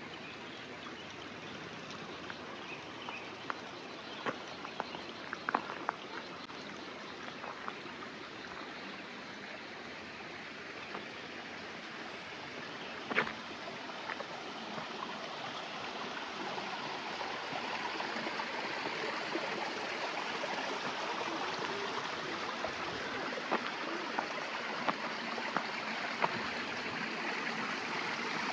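Running water, like a stream or channel, flowing steadily and getting louder through the second half, with scattered small clicks and taps over it.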